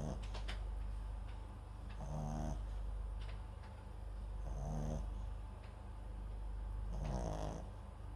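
A small Papillon–Japanese Chin mix dog snoring in its sleep: a short, pitched snore about every two and a half seconds, three of them, with a few faint clicks between.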